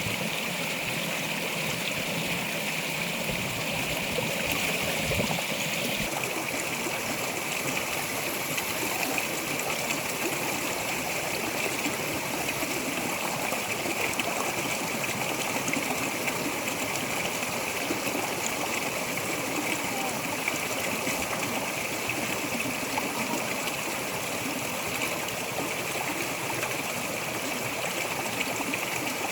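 Steady, even rushing noise, like running water, with a constant high hiss that holds throughout.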